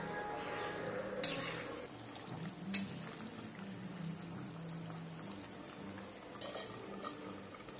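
Fish curry boiling in a metal pan while a spatula stirs and turns the fish, with two sharp clinks of the spatula against the pan. Near the end a steel lid is set on with a light clatter.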